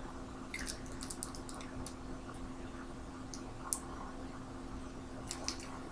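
Light clicks and taps of small plastic items being handled, in a cluster over the first two seconds and a few more near the end, over a faint steady hum.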